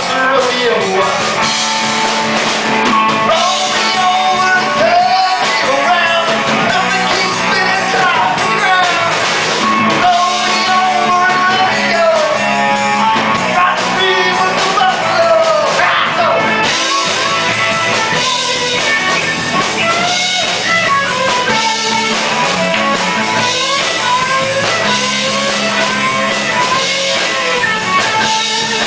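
Live rock band playing loudly: electric guitar, bass guitar and drum kit, with a sung lead vocal over them.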